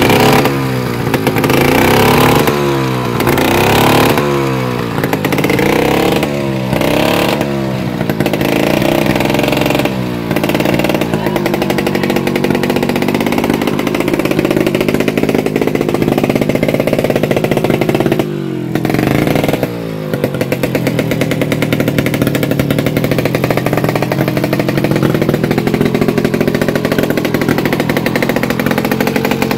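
Two-stroke Vespa scooter engine revved hard in quick blips, about one a second, then held at a steadier high running speed with a brief drop about eighteen seconds in: a test run of the engine.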